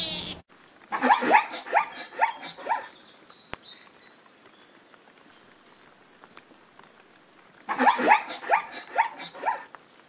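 Zebra barking call: two bouts of about six quick, yelping calls each, several seconds apart.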